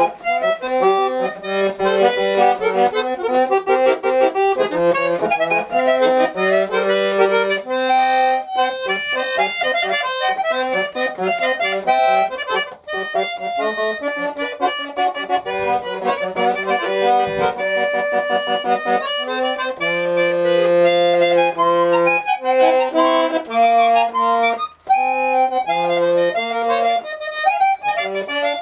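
A very small button accordion playing a simple children's song melody over held bass and chord notes, with two brief dips about 13 and 25 seconds in.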